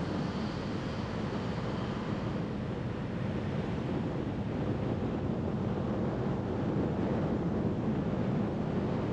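Steady road noise of a car driving on a wet street: tyres hissing on the wet pavement over a low rumble, slowly growing a little louder.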